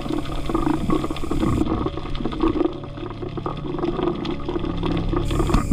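Underwater water noise: swishing and bubbling with many small scattered crackles over a steady low hum.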